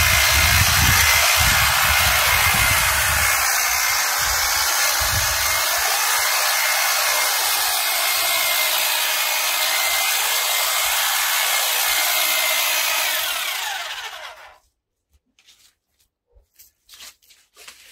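Titan long-reach pole hedge trimmer running steadily, its blades cutting into a thick, dense hedge. About fourteen seconds in it is switched off and runs down to a stop, leaving a few faint clicks.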